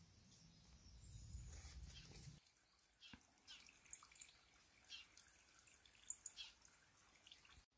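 Near silence: faint outdoor ambience, with a low rumble for the first two seconds or so, then scattered faint short high ticks.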